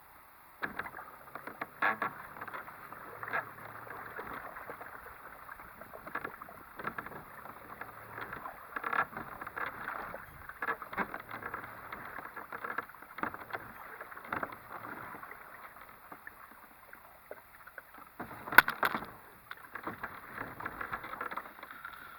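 Water splashing and slapping irregularly against the hull of a kayak under way, with one sharper, louder hit about three-quarters of the way through.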